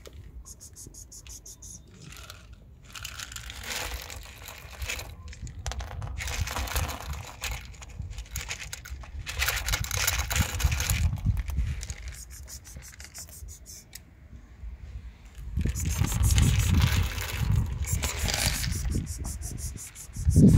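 Dry cat kibble poured and shaken out of a plastic bottle onto a board, rattling out in several bursts with short pauses between them.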